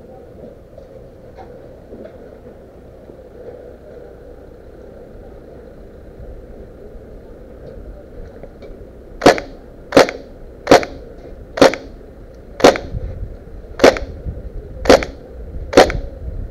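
Airsoft gun fired eight single shots, one roughly every second, close and loud.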